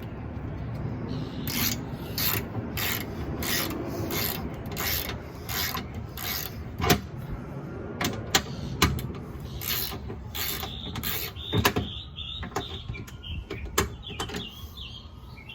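Ratchet wrench backing out a 10 mm bolt: a run of short ratcheting strokes, about one every two-thirds of a second, that stops near the end.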